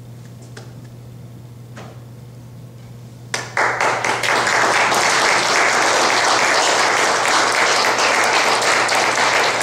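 Small audience applauding by hand-clapping, starting about three seconds in after a quiet pause with a steady low hum, and continuing loud and steady.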